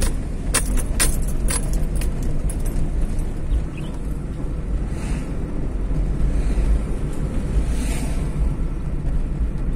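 Steady low rumble of a car's engine and tyres on the road, heard from inside the cabin while driving at an even pace. A few short sharp clicks or rattles sound in the first second and a half.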